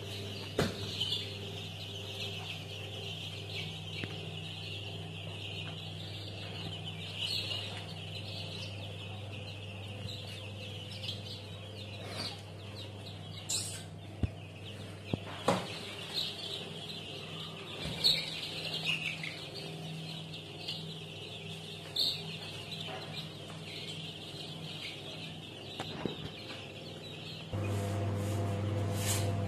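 A brood of young chicks peeping continuously in a shared high chorus, with a few louder individual peeps and a steady low electrical hum underneath. Near the end the peeping stops and a louder steady hum of an egg incubator's fan takes over.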